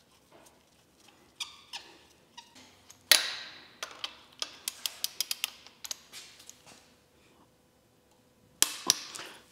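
Ratchet wrench clicking in quick ticks as a cam gear bolt on the Mitsubishi 4G63 cylinder head is run down, the camshaft held still by a wrench on its hex, with a louder knock of the tool about three seconds in.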